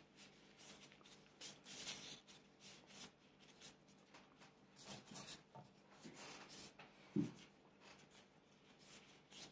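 Faint rustling and light handling noises of hands working food on a board, with one soft low thump about seven seconds in.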